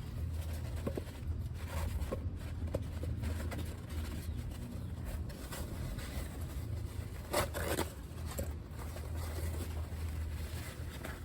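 Light handling sounds of the oil filter being worked by hand: a few faint clicks and one short scrape about seven and a half seconds in, over a steady low hum.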